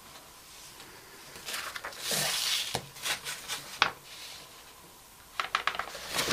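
Sheets of paper rustling and sliding as they are lifted and moved on a craft mat, with light clicks and taps of small craft tools set down on the desk; one sharper click about four seconds in and a quick run of small taps near the end.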